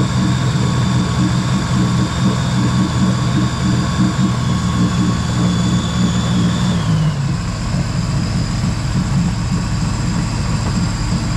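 2016 Sea-Doo RXP-X's freshly rebuilt supercharged Rotax 1630 ACE three-cylinder engine idling steadily on the trailer. About seven seconds in, the idle settles a little lower.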